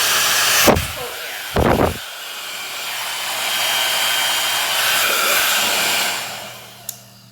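1800-watt ionic hair dryer blowing on its cool setting with a steady rushing hiss. It is broken by a loud knock and a blast of air on the microphone within the first two seconds, swells again, then winds down and stops with a click near the end.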